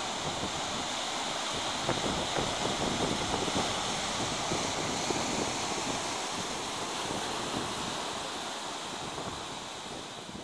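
Pacific Ocean surf washing in, a steady rushing of breaking waves and foam that fades away toward the end.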